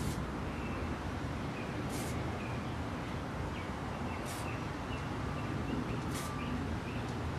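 Short hissing bursts from a Montana 94 spray can fitted with a Skinny 94 cap, about four quick sprays roughly two seconds apart, over a steady background rumble.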